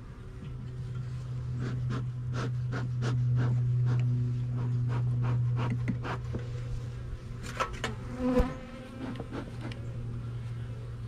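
Honeybees buzzing around an open hive in a steady hum, with short clicks and knocks of frames and hive tool being handled. One louder knock comes about eight seconds in.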